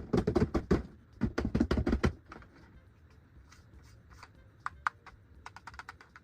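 A quick run of sharp clicks and taps for about two seconds, then fainter, scattered clicks, from toys and their packaging being handled.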